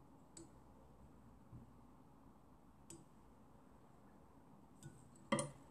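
Quiet room tone with a few faint, short clicks from hands handling thread and feathers at a fly-tying vise. A sharper, louder click comes near the end.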